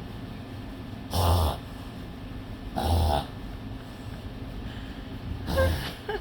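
A dog reverse sneezing: three loud, sharp inhalations through the nose, each under half a second, about a second and a half to two seconds apart.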